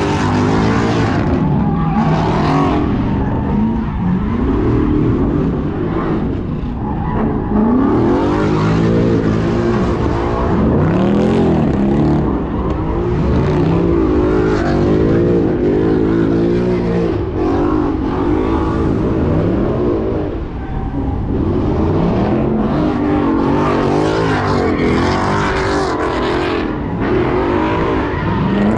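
Car engines revving hard, rising and falling in pitch again and again, as cars spin donuts and burnouts in a pit.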